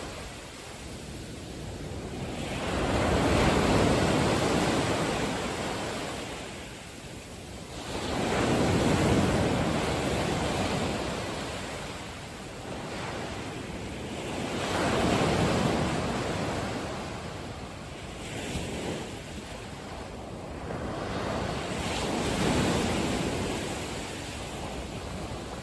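Sea waves washing in and drawing back, the rush swelling and fading about every six seconds.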